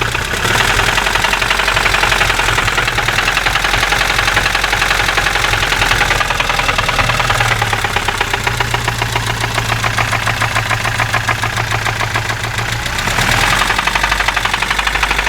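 VAZ-2106 inline four-cylinder petrol engine running at light throttle with a very strong, rapid, steady metallic knock. The knock appeared after the oil pressure warning light had been on; the owner also wonders whether the ignition timing is set too early after a timing-chain replacement.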